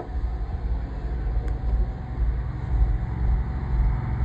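The engine of a van-mounted high-pressure drain jetting unit running steadily as a low rumble, with a faint steady whine over it.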